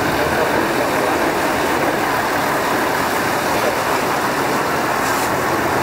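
A motorboat's engine runs steadily at speed while water rushes and splashes past the hull.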